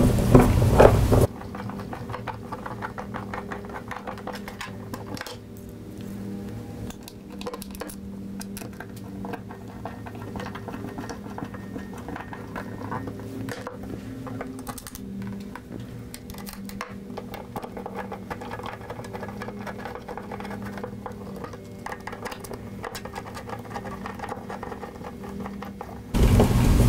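Faint scattered clicks and taps of a hand Phillips screwdriver turning screws into a plastic housing cover, over a low steady hum.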